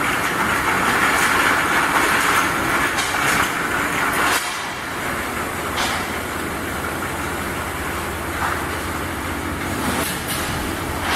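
Automatic glass bottle washing machine running: a steady mechanical clatter and hiss, louder for the first four seconds and then dropping suddenly, with a few sharp clicks.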